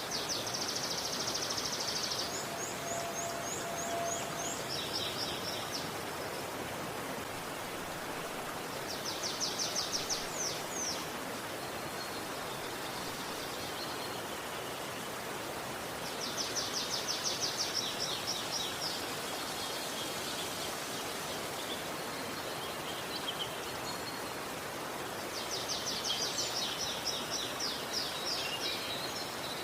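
Steady rushing of a river, with a bird singing rapid, high trills of repeated notes in several bouts of one to three seconds.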